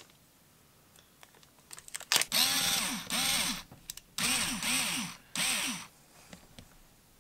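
Small cordless electric screwdriver running in three short bursts, its motor whirring with a pitch that rises and falls repeatedly as it drives in a belt-clip screw.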